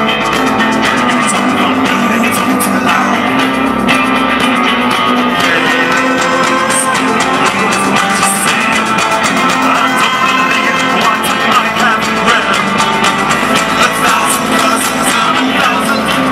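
Live rock band playing an instrumental break without lyrics: harmonica played cupped against a vocal microphone, over electric guitar and drums.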